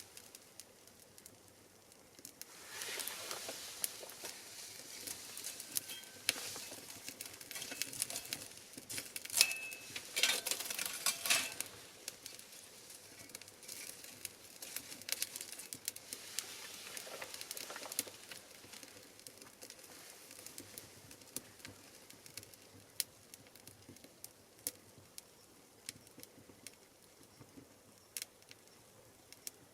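Small fire of burning pine cones and cherry branches crackling and hissing, with sharp pops. The crackling is busy through the first half, with louder flare-ups, then thins to scattered pops and ticks.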